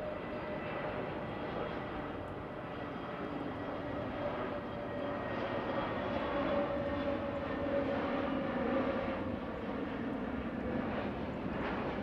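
Airbus A320neo (A320-251N) jet airliner with CFM LEAP-1A engines on approach to land: a steady engine roar with a tone in it that slowly drifts lower, swelling in loudness toward the middle.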